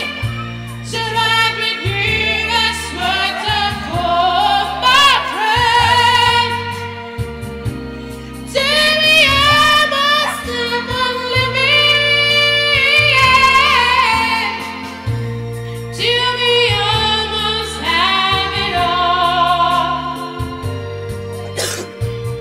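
A small dog howls along with music in long, wavering high notes that rise and fall, over steady sustained bass notes from the music.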